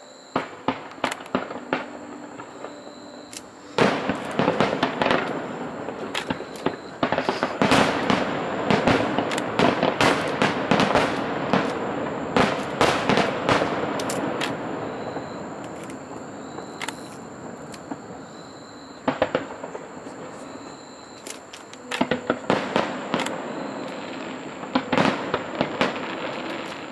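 Fireworks display: many sharp bangs and crackling shell bursts in quick succession, thickening into a dense barrage about four seconds in, easing off past the middle, then building into another barrage near the end.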